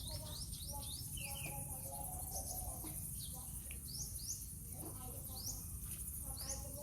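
Small birds chirping: short, high, upward-sweeping chirps repeated irregularly, with lower, shorter notes between them, over a steady high hiss.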